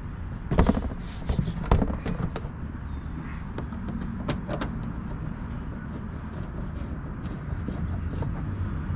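Knocks and clatters of a plastic inner fender liner being pushed and worked into a truck's front wheel well, busiest in the first two seconds with a couple more sharp knocks about four seconds in, over a steady low rumble.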